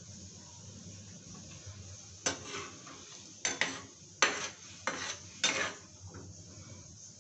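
A long metal spoon stirring thick chickpea curry in a frying pan, about half a dozen short scraping strokes, some in quick pairs, starting about two seconds in.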